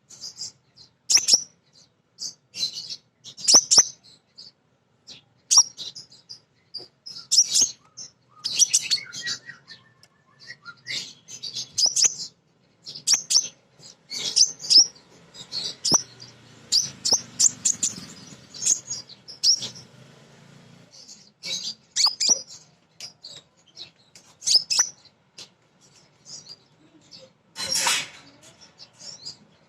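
Female kolibri ninja sunbird calling: rapid, sharp high-pitched chirps and short chattering twitters, repeated irregularly about once a second.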